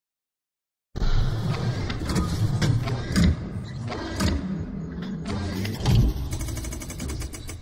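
Animated logo sound effects starting after about a second of silence: a car engine running under whooshes and sharp mechanical hits, with a rapid rattle near the end.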